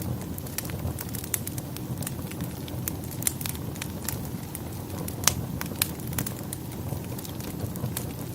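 Wood fire burning in a fireplace: a steady low rumble of flames under irregular sharp crackles and pops, the loudest pop about five seconds in.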